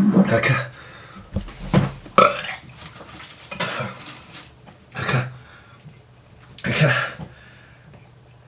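A man retching and gagging over a bin, about six heaves a second or two apart, set off by the stench of a freshly opened tin of surströmming (fermented herring).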